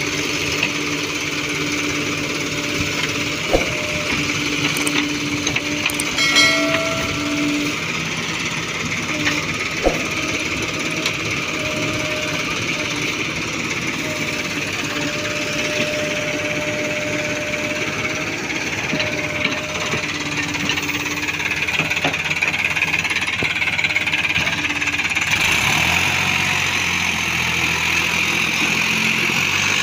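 Diesel engines working: a Tata Hitachi backhoe loader runs steadily with a few sharp knocks in the first third. Near the end a stronger, lower engine note comes in as the Sonalika tractor with its loaded trolley is pushed by the backhoe.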